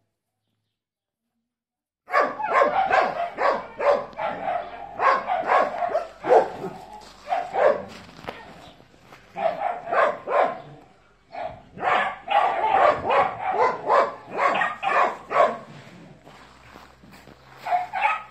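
Dogs barking repeatedly in several loud bouts, starting about two seconds in, with short pauses between bouts.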